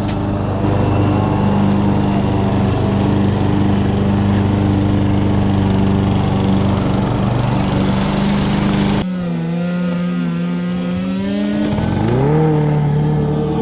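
A small engine running at a steady speed. About nine seconds in the sound switches abruptly to a lower note, then rises in pitch as it revs up near the end.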